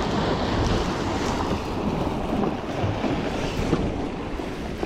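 Sea surf washing against the rocks of a breakwater, with wind buffeting the microphone.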